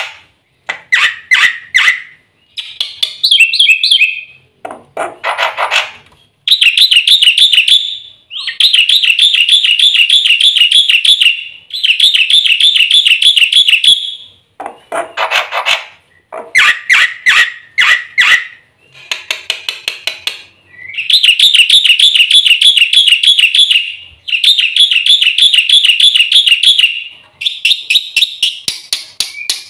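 Black-winged myna (jalak putih) singing loudly: a run of rapid, rattling trilled phrases a few seconds long, broken by short pauses, with a few lower, harsher note strings mixed in.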